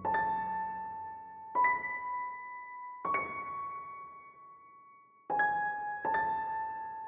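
Slow, sparse background piano music: five single high notes struck a second or two apart, each left to ring and fade.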